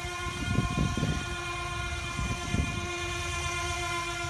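Steady high-pitched whine of the Air Hogs Mini Storm Launcher's twin small electric motors and propellers in flight, holding one pitch, with low gusts of wind buffeting the microphone.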